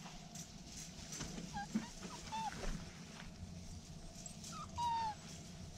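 Standard Schnauzer puppies whimpering in a few short, high cries that fall in pitch, the longest near the end.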